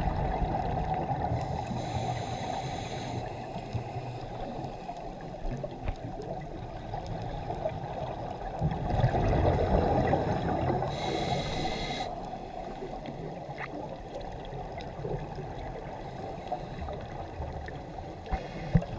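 Underwater scuba regulator breathing heard through the camera housing: a steady low rush of water and exhaled bubbles that swells around 9–10 seconds, with a brief hissing inhale about 2 seconds in, again around 11 seconds, and once more near the end.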